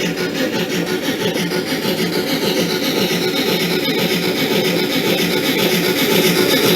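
Steam locomotive running sounds played through a model-railway sound box for a D51 steam engine: a continuous rasping chuff, getting slightly louder toward the end.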